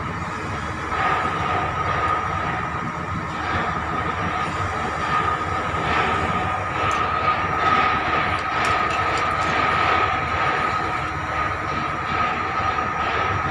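Heavy construction machinery running steadily: the engines of the crane and rotary piling rig setting a large steel foundation casing. A steady high whine runs over it, with scattered rattles in the second half.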